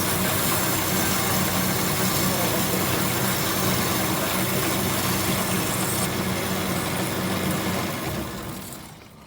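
Metal-cutting bandsaw running steadily, with a low motor hum under a broad, hissing blade noise. It fades out near the end.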